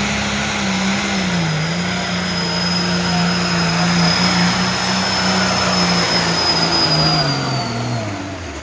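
Pro stock pulling tractor's turbocharged diesel engine running at full throttle under load as it drags the weight sled, with a high turbo whistle over it. Near the end the throttle comes off and the engine winds down, falling in pitch and loudness as the pull ends.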